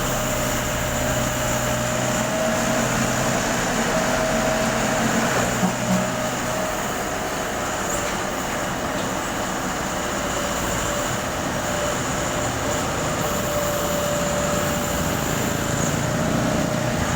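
Backhoe's diesel engine running steadily, with a whine that wavers slightly in pitch and a short knock about six seconds in.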